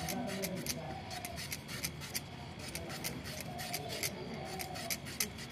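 Raw potatoes being cut into small pieces with a blade: quick, irregular sharp clicks of the cuts, several a second.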